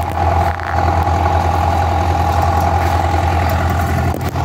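An engine idling steadily, a deep even drone with a steady higher hum above it, dipping briefly near the end.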